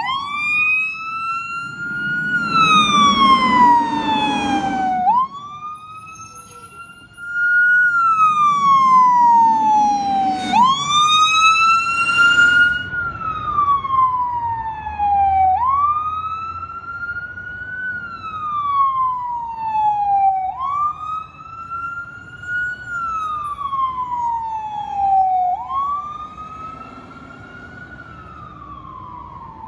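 Fire engine's siren wailing: each cycle climbs quickly and then falls slowly, repeating about every five seconds, growing fainter in the last third.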